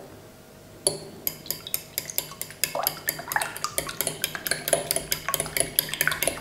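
A metal fork beating eggs and milk in a glass bowl, clinking against the glass in fast, even strokes that start about a second in.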